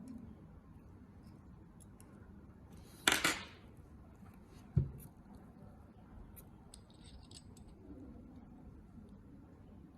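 Small metal tweezers working the parts of a vape heating chamber: a short scrape about three seconds in, a sharp click near the middle, then a few faint ticks.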